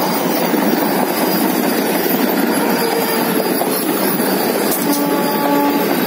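Vande Bharat Express electric multiple unit train set running past at close range: a loud, steady rush of its coaches' wheels on the rails.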